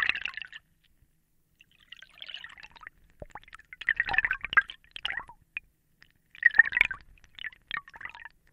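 Scuba ambience: bursts of air bubbles gurgling underwater, recurring every second or two, with a few sharp clicks between them.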